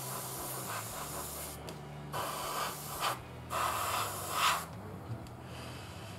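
Airbrush spraying thinned paint held close to the surface, a hiss of air in three bursts separated by short pauses, the last stopping about two-thirds of the way through. A low steady hum runs underneath.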